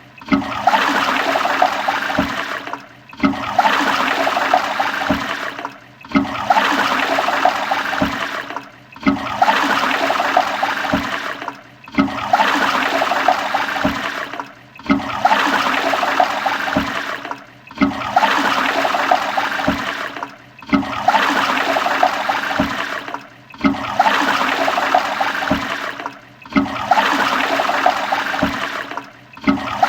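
Toilet flushing: a rush of gurgling water that repeats about every three seconds, each time cutting out briefly before starting again.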